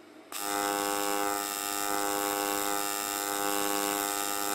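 TIG welding arc on an aluminium fuel tank, a steady electric buzz that starts a moment in after a brief gap.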